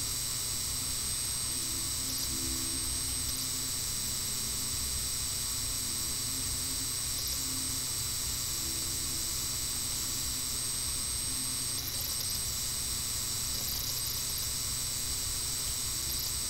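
Steady background hiss with a thin high whine and a low hum underneath: the recording's electrical and microphone noise, with no other sound.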